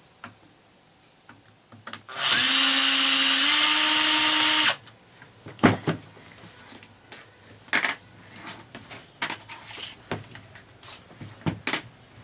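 An electric drill used as a screwdriver runs for about two and a half seconds, unscrewing a housing bolt, with a steady whine that steps up slightly in pitch partway through. It is followed by scattered small clicks and knocks of screws and plastic casing parts being handled.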